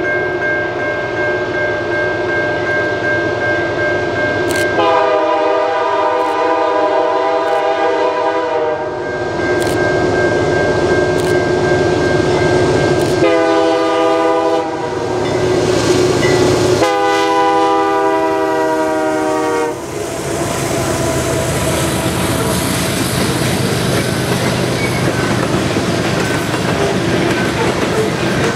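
A BC Rail GE C40-8M locomotive's Nathan K3L air horn sounds three times as the train approaches: a long blast about five seconds in, a short one, then another long one. From about twenty seconds in, the locomotives pass and the train's covered hopper cars roll by, wheels running on the rails.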